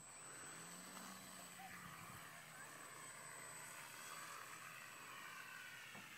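Faint whine of a radio-controlled model airplane's motor and propeller as the plane takes off and climbs away, its pitch wavering.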